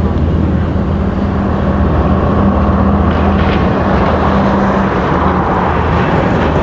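A motor vehicle engine running steadily close by: a steady low hum over a continuous rushing noise.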